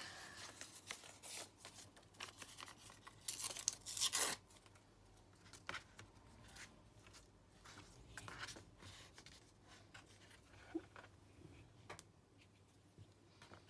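Paper scraps being handled and torn, with two louder rips of paper about three to four seconds in, followed by quieter rustling and light taps.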